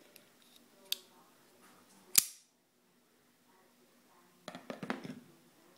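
Folding flipper knife being handled, making sharp mechanical clicks: a faint click about a second in, a loud snap about two seconds in, and a quick cluster of clicks and rattling near the end.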